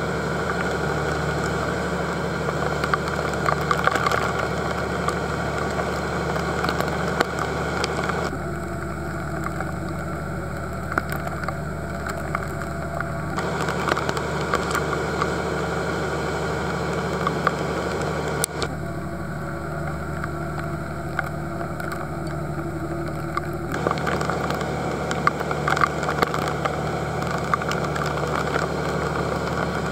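Dive boat's engine running steadily under way, a constant hum under a rush of noise, with scattered sharp ticks.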